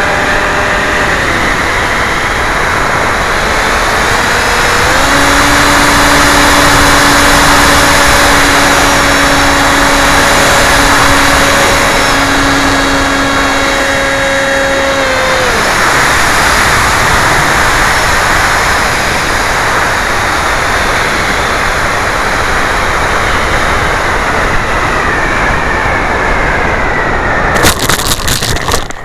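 Radio-controlled foam flying wing's 2200 kV brushless motor and propeller in flight, with heavy wind rush over the onboard microphone. The motor holds a steady whine for about ten seconds, then is throttled back about halfway through, leaving mostly wind noise as the wing glides. Near the end, a short burst of knocks and rustling as it lands in grass.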